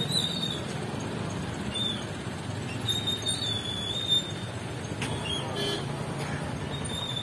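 Street traffic noise from passing vehicles, with a few brief high-pitched tones coming and going and a short sharp knock about four seconds in.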